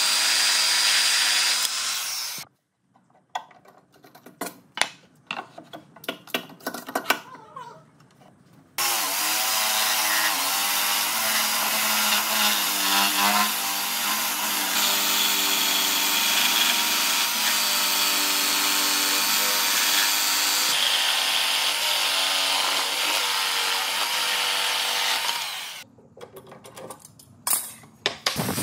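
Electric power tool running on wood, stopping after about two seconds for several seconds of knocks and clicks from handling the work. It starts again and runs steadily for about seventeen seconds, its pitch shifting now and then as it works, and stops near the end for a few more knocks.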